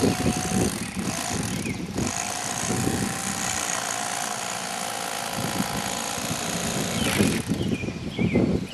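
Corded electric fillet knife running steadily, its reciprocating blades sawing through a walleye as it is filleted.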